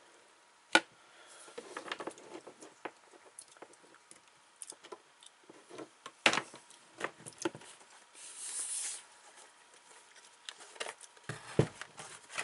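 Handling noises inside a dishwasher: scattered sharp clicks and knocks, with a short hiss or scrape about eight seconds in.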